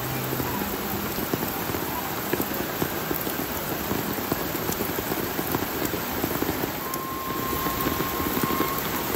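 Steady, fairly heavy rain falling, a dense patter of many small drops hitting surfaces. A thin steady tone sounds faintly for about two seconds near the end.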